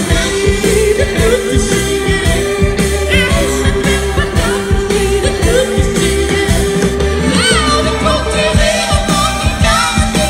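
Live rock band playing: drums, electric guitars and saxophone with vocals over them, loud and steady throughout.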